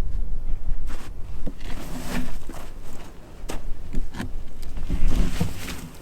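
Irregular knocks and scrapes of a heavy pine log being moved by hand, with wind rumbling on the microphone.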